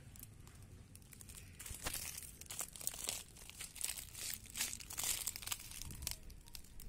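Irregular crinkling and crunching, starting about a second and a half in and going on in uneven bursts until shortly before the end.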